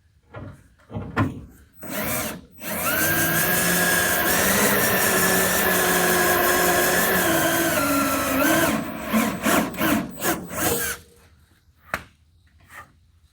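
Power drill working on a broken fender bolt. It runs in a few short bursts, then in one long run of about six seconds whose motor pitch wavers and drops under load near the end, then in several short bursts again.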